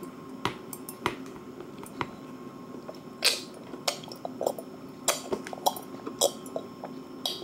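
Baby drinking from a small metal cup held to his mouth: a run of small mouth clicks and sips, with two louder sips about three seconds in and near the end.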